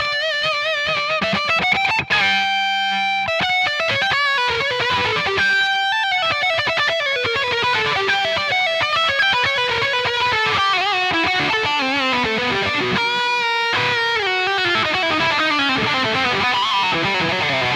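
Electric guitar played through an amp-simulator plugin with a modulated filtering delay. Held lead notes waver with vibrato, there is a short break about two seconds in, and through the second half the melodic line steps down in pitch.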